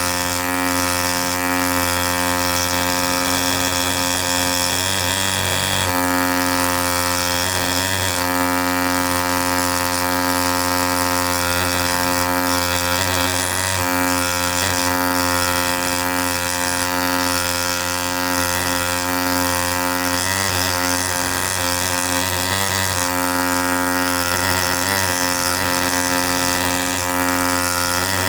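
ZOIC PalaeoTech T-Rex pneumatic air scribe running, a steady high buzz from its reciprocating stylus with a hiss of exhaust air; the tone wavers briefly a few times.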